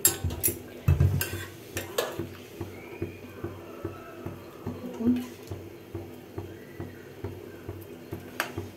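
A metal ladle stirring thick lentil-and-vegetable dalma in a metal kadai, scraping and clinking against the pan. Several sharp clinks come in the first two seconds and another near the end.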